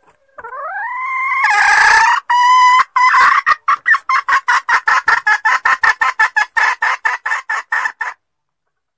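A junglefowl hen calling: one long call that rises in pitch, then a fast run of short, repeated clucks at about five a second that stops abruptly.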